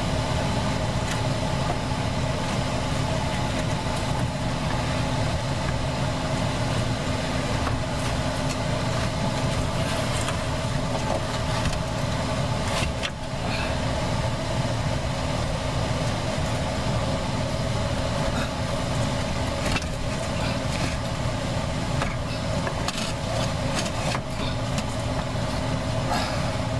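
Steady hum of an electric fan running, with scattered short knocks and scrapes as the evaporator coil is handled and worked into the air handler's cabinet.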